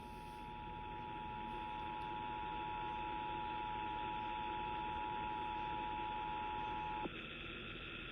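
Emergency Alert System two-tone attention signal: two steady tones sounding together, cutting off abruptly about seven seconds in, leaving a second of broadcast hiss. It is the alarm that precedes a new emergency alert message.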